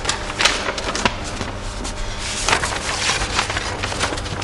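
Large paper sheets rustling as a folded plan is opened and leafed through by hand, with several sharp crackles.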